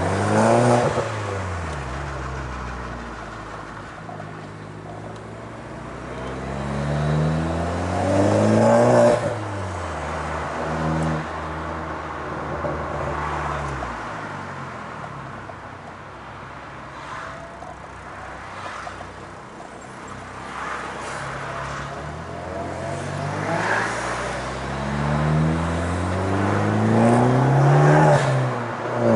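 Fiat Grande Punto Abarth's turbocharged 1.4 T-Jet four-cylinder engine revving up and dropping back several times, with short sharp exhaust pops and crackles as the revs fall, from a pops-and-bangs engine map.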